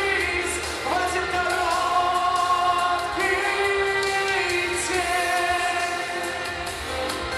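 A male voice singing a slow pop song over a band accompaniment, with long held notes.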